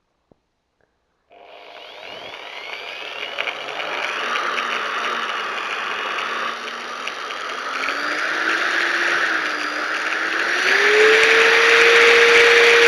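Electric drill spinning a speedometer cable: the motor starts about a second in and its whine rises in pitch in steps as the trigger is squeezed harder, then holds at top speed near the end, over a rattly whir from the spinning drive.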